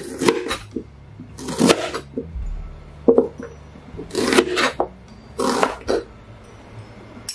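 Chef's knife slicing through a red onion onto a plastic chopping board: five crisp cuts a little over a second apart, each ending in a knock on the board.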